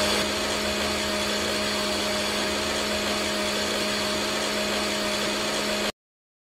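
Small electric motor of a miniature homemade juicer running steadily, turning the juicer through a belt and pulley with a steady whir and hum. The sound cuts off abruptly near the end.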